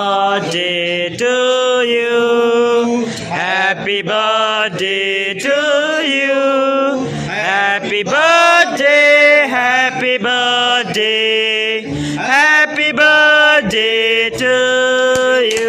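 A song with a male singing voice, a slow melody of held notes that slide between pitches.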